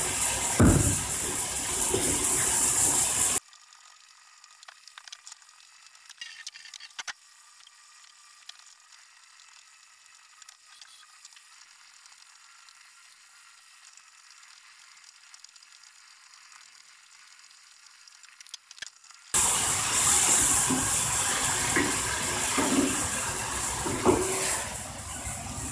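Pork and turnip stir-fry sizzling loudly in a frying pan in its soy-sauce seasoning, with a wooden spatula knocking as it is stirred. A few seconds in the sound drops abruptly to a faint hiss with light clicks. About 19 seconds in the loud sizzling returns as the sauce cooks down.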